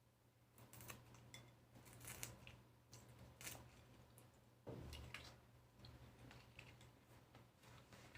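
Faint eating sounds from lychees being peeled and eaten: scattered small clicks and crackles of the shell, with a louder crackle about halfway through.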